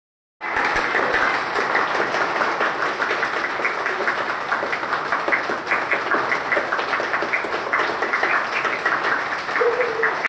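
A group of people clapping their hands continuously together, many claps overlapping in a dense, steady patter. It starts about half a second in and cuts off suddenly.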